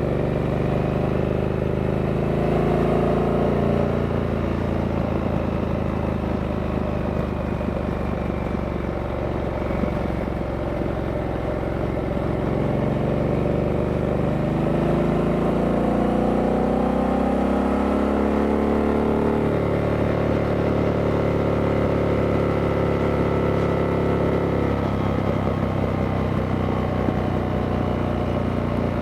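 A stock 2023 Harley-Davidson Sportster S's 1250 cc V-twin running under way. Its note rises and falls several times as the rider opens and closes the throttle and changes gear.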